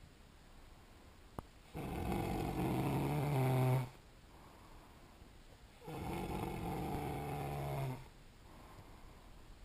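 A man snoring in his sleep: two long snores of about two seconds each, roughly four seconds apart, the first growing louder toward its end. A single faint tick about a second and a half in.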